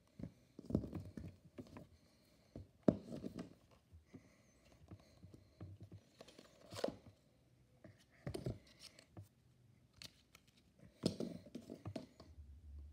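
Hands handling a cardboard phone box and its insert tray: scattered rustles, scrapes and light knocks of cardboard, in about five short bursts.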